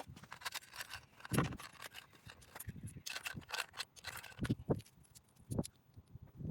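Scattered sharp clicks, scrapes and a few dull knocks at an uneven pace, with no engine running.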